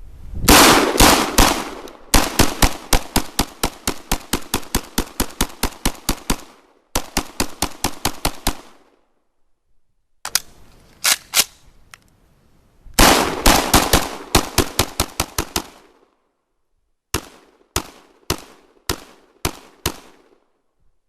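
Century Arms PAP M92 semi-automatic AK-pattern pistol in 7.62x39mm firing rapid strings of shots, about four to five a second, broken by short pauses. Near the end come six slower, evenly spaced single shots.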